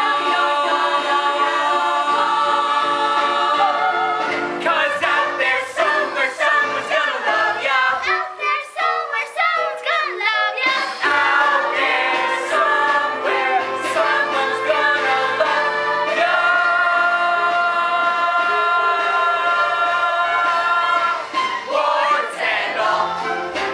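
A musical-theatre cast singing together over musical accompaniment. There are long held notes at the start and again later, with a quicker, wavering passage in the middle.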